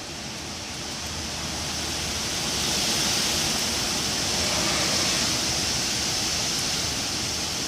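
Wind gusting through trees, a rushing hiss of leaves and branches that swells over the first three seconds and then holds steady.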